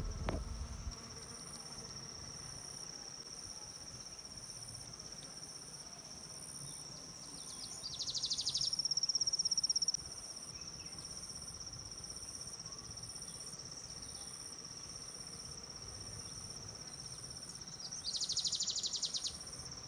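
Insects trilling steadily in the field, with a louder, fast-pulsing insect call that comes in twice, about eight seconds in for a couple of seconds and again near the end. A brief low thump at the very start.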